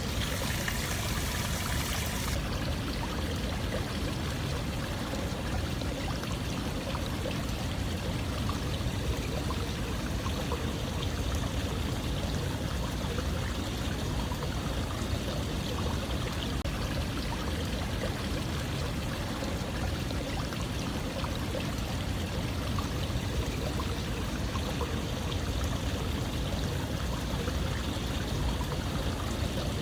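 Running water rushing steadily, like a flowing stream, an even unbroken wash of sound. For the first two seconds or so an extra high hiss sits on top, then drops away.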